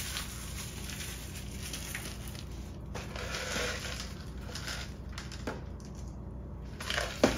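Rustling and crinkling of a shrink-wrapped cup noodle bowl as it is picked up and turned in the hand, with a couple of sharp clicks near the end.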